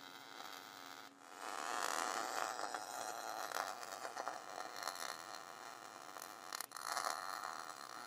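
MIG welder arc crackling as square steel tubing is welded onto a car door, with a short break in the arc about a second in and another near the end.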